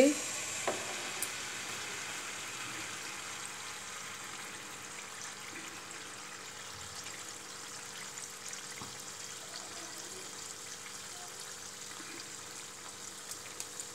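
Malpua batter frying in hot oil in a flat pan on a low flame: a steady sizzle that eases slowly.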